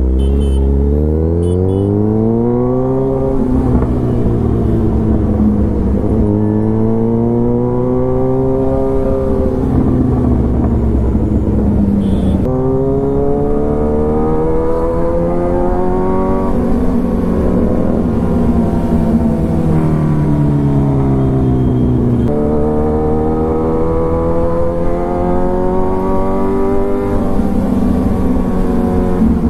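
Kawasaki Ninja 1000's inline-four engine under way, its revs climbing in several pulls with a sudden drop in pitch at each upshift, then falling off where the bike slows, before pulling again.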